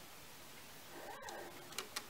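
Hamann Automat V mechanical calculator being worked by hand: a faint scrape about a second in, then two sharp mechanical clicks near the end.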